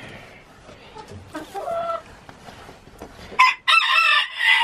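Chickens in a coop: a softer call about a second and a half in, then a rooster crows loudly for about a second near the end.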